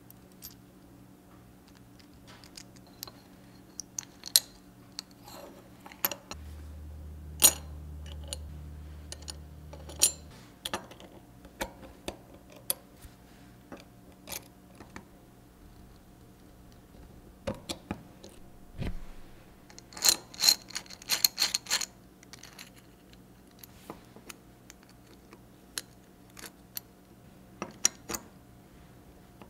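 Small metal parts clicking and clinking as they are handled, with a quick run of ringing clinks about two-thirds of the way through. A low hum runs for about four seconds, starting about six seconds in.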